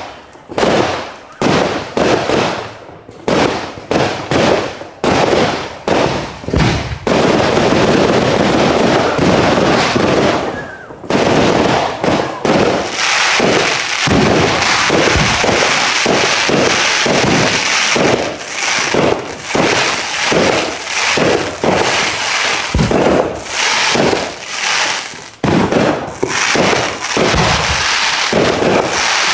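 Loud fireworks going off in a rapid string of bangs, two or three a second. In the middle they merge into a dense, continuous crackling barrage for several seconds, then separate bangs come again near the end.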